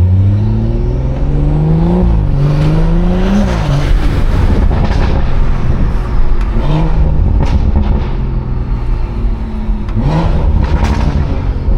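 BMW 340i's turbocharged B58 inline-six through a modified exhaust, accelerating hard: the pitch climbs, drops briefly at an upshift about two seconds in, climbs again, then falls off. Shorter bursts of throttle follow, one a little past halfway and another near the end.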